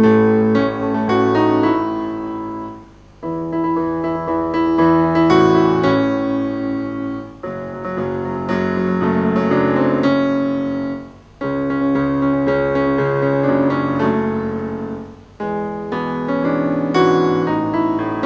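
Piano music: phrases of sustained notes and chords, each about four seconds long, with a brief pause between phrases.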